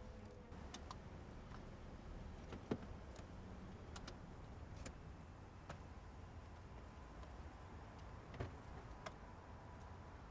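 Faint low hum with a scattering of light clicks and ticks at uneven intervals. The loudest is a sharp knock about three seconds in.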